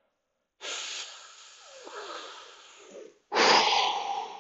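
A man's heavy breathing while holding a tight hip stretch: a long breathy exhale, then about three seconds in a sudden, loud, forceful breath out that fades away.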